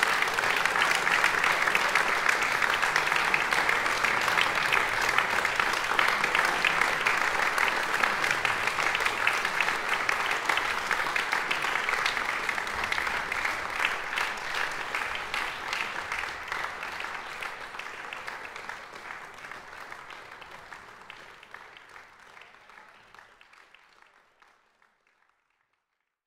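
Audience applauding: dense, steady clapping that fades out gradually over the second half to silence.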